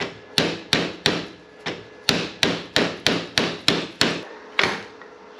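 Rapid hammer taps, about three sharp strikes a second, knocking the over-tightened expander bolt of a handlebar mirror mount further in so the stuck mirror will come out; the taps stop shortly before the end.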